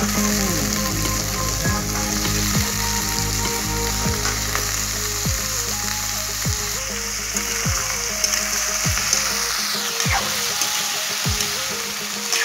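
Cubed potatoes sizzling as they fry in hot oil in a kadhai, with a steel ladle stirring them toward the end.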